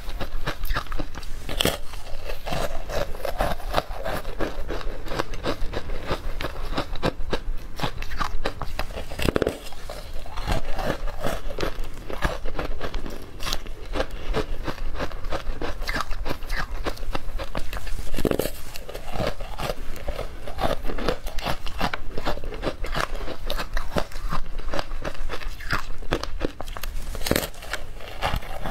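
Close-miked crunching and chewing of powdery frozen ice coated in matcha powder: a dense run of small, crisp crackles as bites are taken and chewed.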